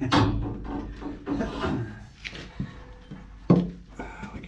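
Rubbing and scraping as parts are handled at the water heater, with one sharp knock about three and a half seconds in.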